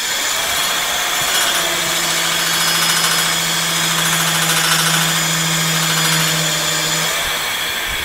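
A 3000 W, 72 V e-bike hub motor spinning its wheel at top speed in the air with no load, a loud steady whirr. A steady low hum joins about two seconds in and stops about a second before the end.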